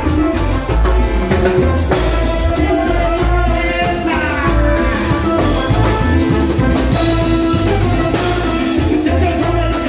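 Live cumbia band playing: drum kit, keyboard, brass and a scraped metal güiro over a steady beat, with falling keyboard or brass glides about four seconds in.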